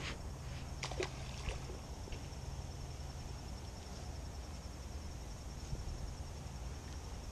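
Pond-bank ambience: a steady high insect trill over a low rumble, with a few light clicks and taps in the first second and a half as the soft plastic worm and hook are handled.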